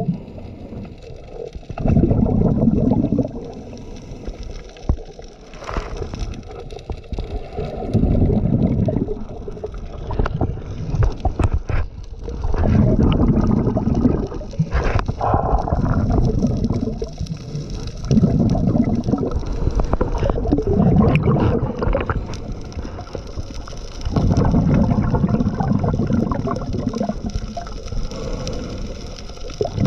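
Scuba diver breathing through a regulator underwater: each exhale sends out a loud burst of bubbling exhaust bubbles, roughly every three to six seconds, with quieter stretches and a few faint ticks between breaths.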